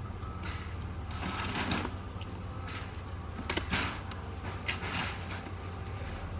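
A wooden hive frame with wax foundation being handled, giving a few brief rustling, scraping sounds over a steady low rumble.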